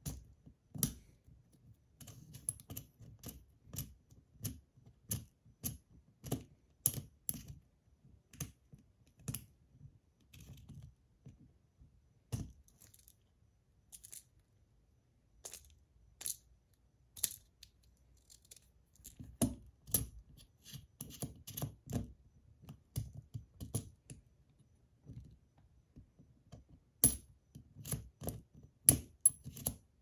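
Parts of a PillBug fidget toy clicking and clinking as it is handled and taken apart by hand: irregular sharp clicks, thinning out for a few seconds in the middle and coming thick again in the last third.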